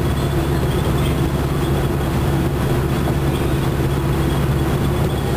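Detroit Diesel Series 50 inline-four diesel of a 1996 Nova Bus Classic transit bus running at highway cruise, heard from inside the cabin: a steady drone with road noise from the tyres.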